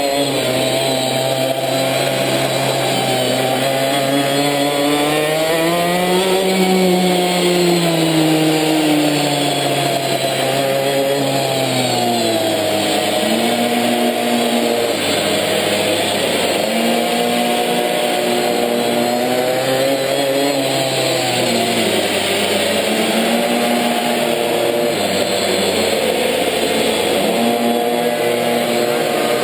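A minimoto's small two-stroke engine, heard from on board the bike. Its pitch rises and falls over and over as the throttle is opened and closed through the corners, with the highest run of revs about six seconds in.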